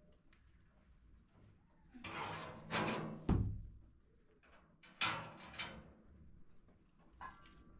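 Background music: a few sparse, pitched drum-like hits that ring out, the deepest and loudest about three seconds in.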